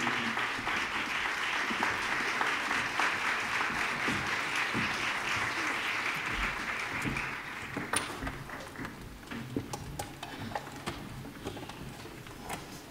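Audience applauding in a concert hall, the clapping dying away about two-thirds of the way through. Scattered small clicks and knocks from the stage follow.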